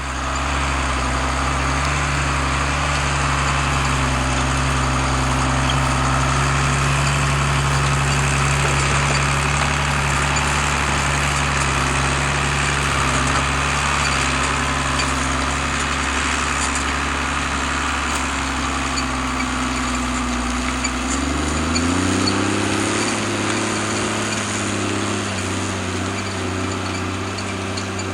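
New Holland TM120 tractor's diesel engine running steadily. About 21 seconds in, its pitch rises over a second or so as the revs pick up, then holds at the higher speed.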